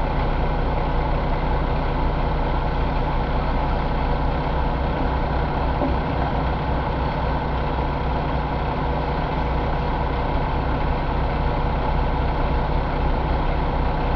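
A 2018 Paccar MX13 inline-six diesel engine idling steadily, heard from the open engine bay.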